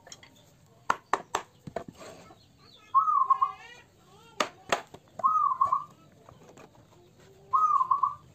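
A bird calling three times, each call a short arched note about two seconds apart, with several sharp clicks or knocks before and between the calls.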